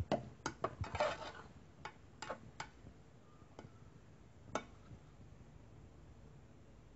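A metal spoon clinking and scraping against a metal pot while stirring a cooked meat filling: a quick run of clicks at first, then two single ticks.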